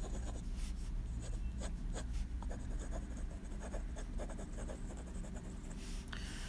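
Medium nib of a Montblanc fountain pen scratching across paper as it writes a word in quick, irregular strokes, with a slightly longer stroke near the end.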